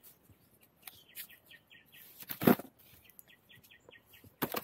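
Dry bamboo-leaf litter crunching and rustling as cut bamboo shoots are picked up and handled, with a heavy thump about halfway through and another near the end. Behind it a quick high chirp repeats about four or five times a second.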